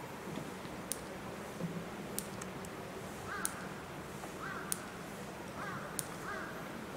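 A crow cawing four times, the calls short and faint, starting about three seconds in. Through it a sharp tick repeats evenly about every second and a quarter, over a faint steady hum.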